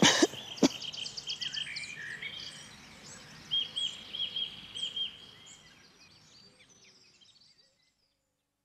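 Outdoor ambience of birds singing and chirping, with a run of quick repeated notes in the middle, fading out to silence shortly before the end. Two sharp knocks come within the first second and are the loudest sounds.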